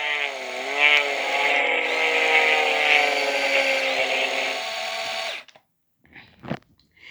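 Remote-control Dusty Crophopper toy plane making its engine sound: a steady motor-like drone that wavers in pitch near the start, then sinks slowly and cuts off suddenly about five and a half seconds in.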